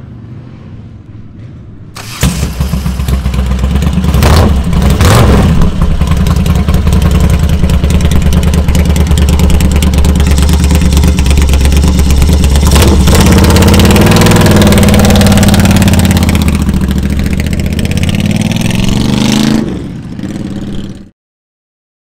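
Moto Guzzi Le Mans 1000's air-cooled V-twin racing engine firing up about two seconds in through open exhausts. It is blipped twice, then runs loudly with the revs rising and falling, until the sound cuts off suddenly near the end.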